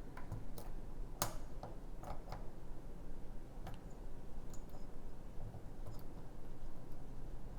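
Light, irregular metallic clicks and ticks of a lock pick working the pins inside a pin-tumbler challenge lock, with one sharper click about a second in. A faint steady hum runs underneath.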